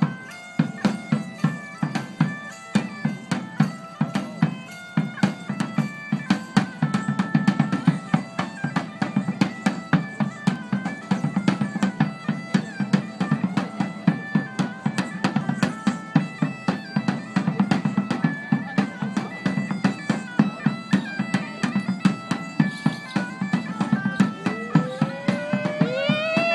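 Bagpipe-and-drum dance music: a steady drone under a stepped melody, with a regular drumbeat. Near the end a rising pitched glide sounds over it.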